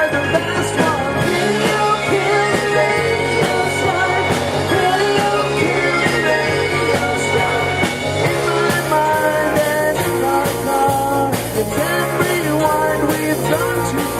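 Live rock and roll band playing a song with a singer, during a sound check.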